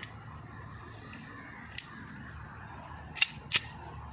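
Zigana Sport 30 bore pistol: a faint click about two seconds in, then two loud, sharp snaps about a third of a second apart near the end.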